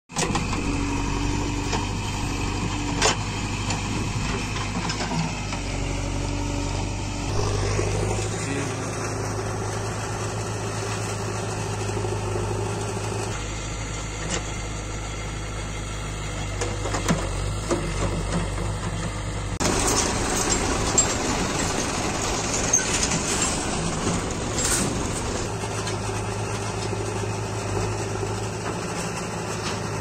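JCB 3DX backhoe loader's diesel engine running steadily under load while the backhoe digs and dumps soil, its note shifting several times as the hydraulics work. A few short sharp knocks from the bucket and arm stand out over the engine.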